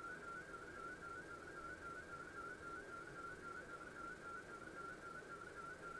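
Faint warbling tone from a ham radio receiver's speaker: an FSQ image transmission being received over HF, a slow-scan-like signal whose pitch keeps flicking rapidly between two close notes, over a low hiss of band noise.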